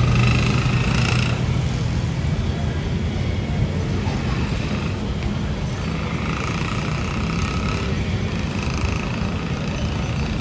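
Road traffic: a steady low rumble of motor vehicles running, with fainter higher sounds that come and go.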